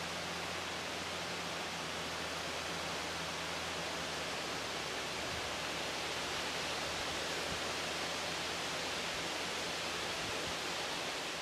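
Steady, even hiss with a faint low hum beneath it, with no distinct events.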